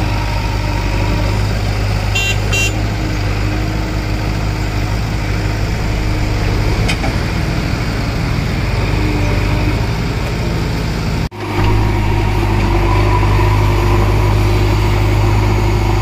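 JCB 3DX backhoe loader's diesel engine running steadily under load as the machine works through deep mud. The sound cuts out for an instant about eleven seconds in, then the engine carries on.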